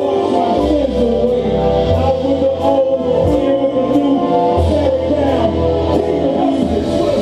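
Live gospel worship music: singers over a band with long held bass notes and a steady drum and cymbal beat.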